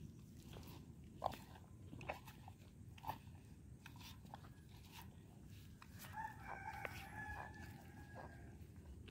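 Cow biting and chewing food held to its mouth: faint, scattered crunching clicks. About six seconds in, a drawn-out high call rises briefly in the background.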